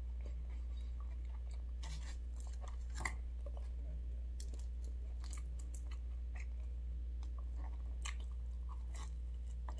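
A person chewing and biting into a slice of Domino's pizza, with scattered short clicks of mouth and crust sounds, over a steady low hum.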